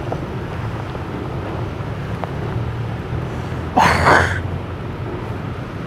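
Storm wind and heavy rain, with wind buffeting the phone's microphone in a steady rushing rumble. A louder burst about four seconds in stands out for roughly half a second.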